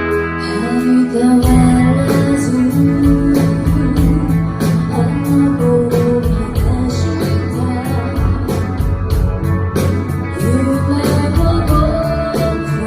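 Live rock band playing: a held guitar chord, then the full band comes in with bass and drums about a second and a half in, guitar and voice over the top.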